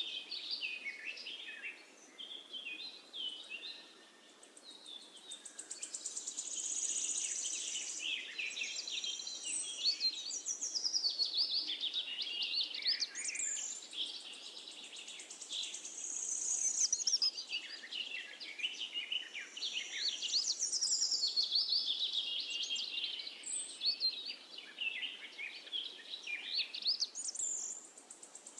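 Birds singing, a dense run of high chirps and quick up-and-down whistles with only brief lulls.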